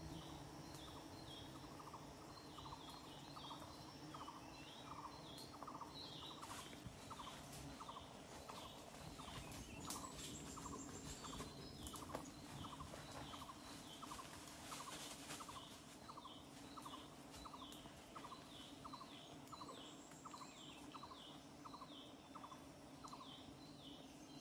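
Faint forest ambience: a bird calls in a quick, regular series of short notes, about two or three a second, with higher chirps over it and a steady low hum.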